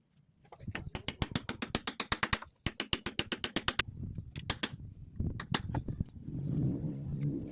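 A hammer tapping nails into wooden trim: quick runs of sharp knocks, about nine a second, then a few single strikes.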